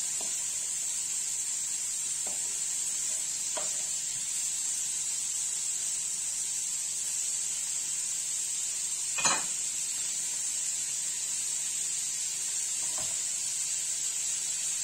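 Diced beef frying in rendered sheep tail fat in a saç pan, a steady sizzle. A few light knocks of a wooden spoon stirring against the pan, the loudest about nine seconds in.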